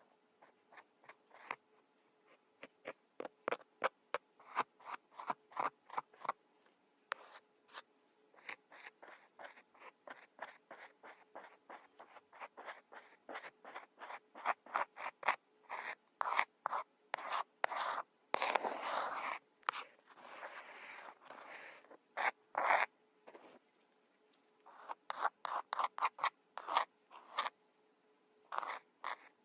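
Kinetic sand being worked by hand or with a tool: quick runs of short, crisp crunching and scraping strokes, with a longer stretch of steady rubbing past the middle.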